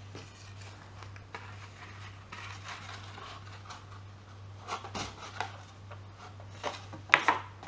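Paper card being handled and folded while a wooden pencil is pushed through holes in it: soft paper rustling with light taps and clicks on the desk, a few sharper ones near the end. A steady low hum runs underneath.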